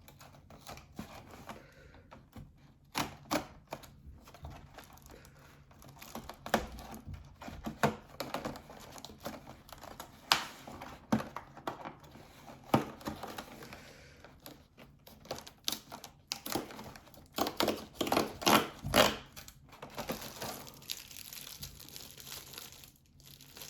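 A small cardboard box compartment being torn open and its packaging handled, with irregular crinkling, crackles and rips and a denser rustle near the end.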